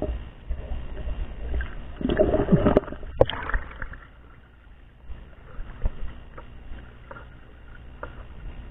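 Shallow water splashing and sloshing as someone wades over a rocky bottom, loudest about two seconds in, with a single sharp knock about three seconds in.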